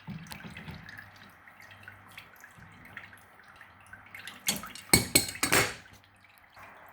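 Water dripping and trickling, with a cluster of loud clattering knocks and scrapes of hard objects being handled a little past halfway.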